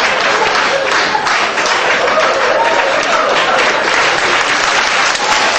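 Audience applauding steadily, a dense unbroken clapping.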